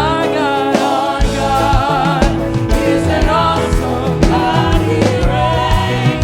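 Live gospel praise music: voices singing together over a band with bass and a steady beat.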